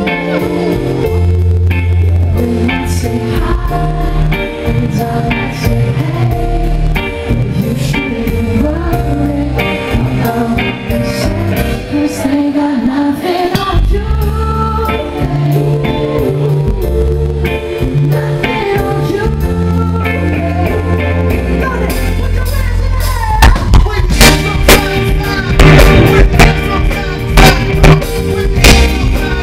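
Live band music: a man's lead vocal over electric guitar, bass and drums. From about 23 seconds in, the beat gets louder and sharper.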